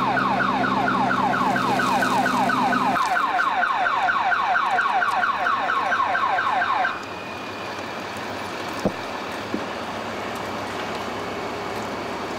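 A car alarm sounding a rapid, even series of falling chirps, about five a second, which cuts off about seven seconds in. A low steady hum sits under the first few seconds, and after the alarm stops a steady hiss remains, with two sharp clicks.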